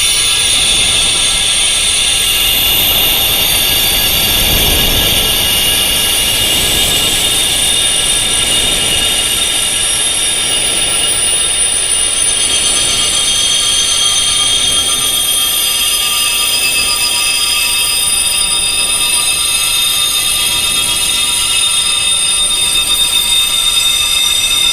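Wind chimes tuned to tinnitus pitches, ringing continuously: many high, long-ringing metal tones overlapping in a dense, steady wash.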